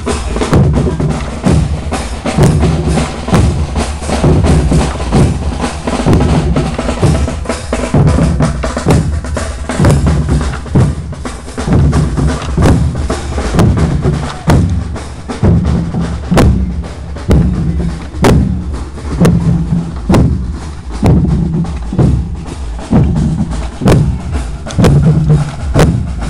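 Marching band playing a march, its drums to the fore with a strong bass drum beat about once a second and sharper drum strokes between.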